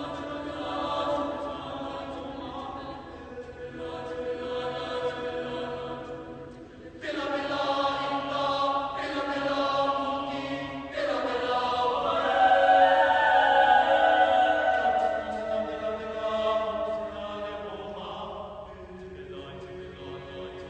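Mixed high school choir singing sustained chords. A sudden louder entry comes about seven seconds in, and the voices slide upward into the loudest passage a few seconds later, then ease off softer toward the end.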